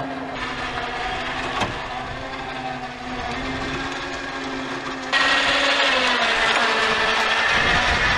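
An engine running steadily at idle. About five seconds in, an electric winch switches on abruptly and keeps up a loud steady whine as it winds in its cable under load, hauling a mower onto a trailer.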